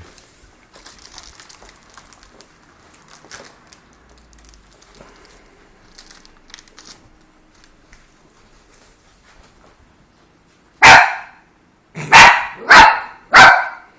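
A dog barks four times near the end, once and then three quick barks, after several seconds of faint scattered noises.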